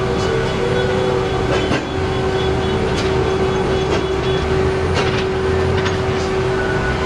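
Heavy earthmoving machinery running: a steady engine drone under a constant high whine, with a few sharp metallic knocks.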